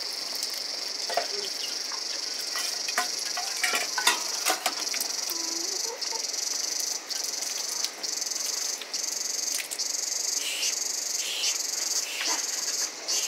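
Insects trilling in a steady high chorus that breaks into pulses about once a second in the second half, with scattered light clicks and taps over it.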